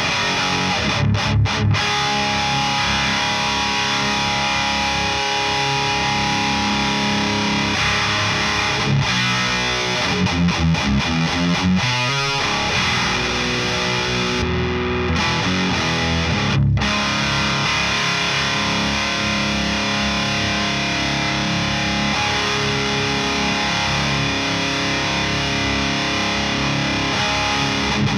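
Electric guitar played through a boosted Mesa single rectifier amp: distorted high-gain riffs, held chords alternating with chugging passages, with a few short stops between phrases.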